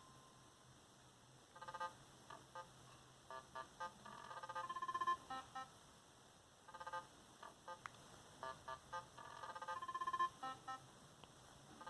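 Samsung Galaxy Y ringtone playing: a quick electronic melody of short beeping notes ending in a rapid trill. The phrase lasts about three and a half seconds and comes round again after a short pause.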